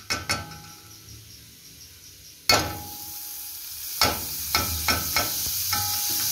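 A metal spoon clinking and scraping against the rim of a hot metal pot as a spoonful of fat is knocked off into it, several sharp taps. From about two and a half seconds in, the fat starts sizzling as it melts, the hiss growing steadily louder.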